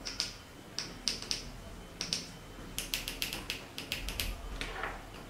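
Light, irregular plastic clicks and taps from a small LED microscope ring light and its inline brightness control being handled and adjusted, with a quicker run of clicks about three seconds in.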